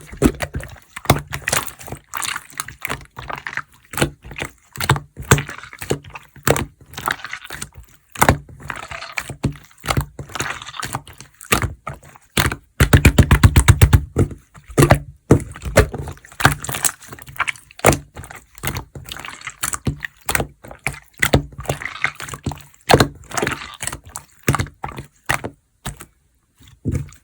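Mixed slime being squished, poked and stretched by hand, giving an irregular run of wet crackles, clicks and air-bubble pops. About halfway through comes a louder run of quick pops.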